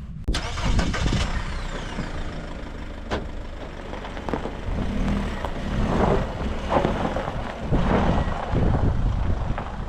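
A car's engine running as the car is moved and re-parked, with a falling whine in the first couple of seconds and a few louder swells later.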